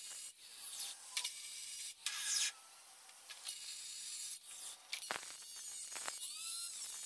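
Angle grinder with a cutoff wheel cutting into the steel inner C of a Dana 44 front axle: a hissing, high grind that comes and goes as the wheel is eased on and off the metal, quieter for a moment a little under halfway through.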